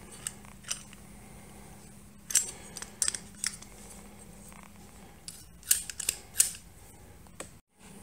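Light metal clicks and taps, scattered and irregular, from a storm door handle set as it is turned over in the hands, its pieces shifting against each other.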